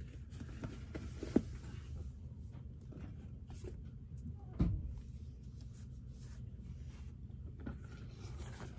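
Black Dr. Martens 1460 nappa leather boots being pulled off by hand: faint leather and sock rubbing over a steady low hum, with a sharp click about a second and a half in and a dull thump near the middle.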